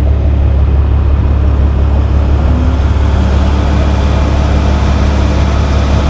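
Heavy, steady engine rumble from vehicles running during a winch recovery, with a faint higher steady tone and more mechanical noise joining about three seconds in.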